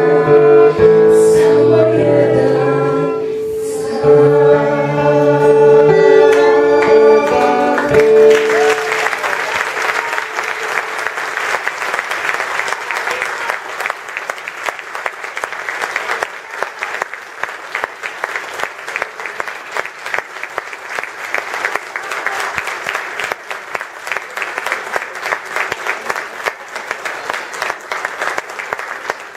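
A female soloist and a women's vocal group sing the closing phrase of a song over a long held note. The song ends about eight seconds in, and the audience breaks into steady applause.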